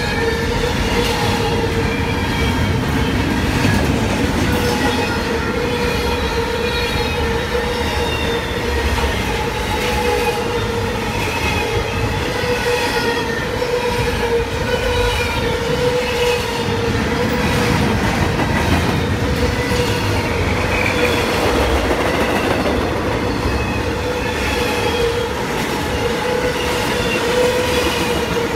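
Intermodal freight train's container and trailer cars rolling past: a steady rumble of wheels on rail with a continuous high squeal of wheels and flanges over it.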